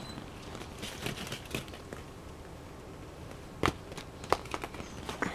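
Light clacks and rustling of hollow plastic ball-pit balls and an inflatable vinyl pool as a toddler moves among them, with a few sharper clicks in the second half.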